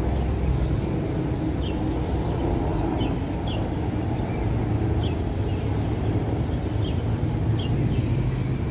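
Steady low rumble of city traffic, with short high chirps of small birds coming every second or so.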